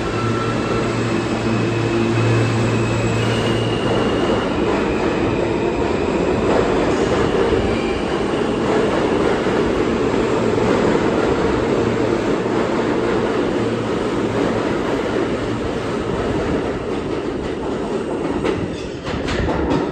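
R160A subway train pulling out of the station and accelerating past: an electric motor whine that climbs in steps over the rumble of steel wheels on the rails. Near the end, clicks come as the last cars cross rail joints, and the sound falls away as the rear car passes.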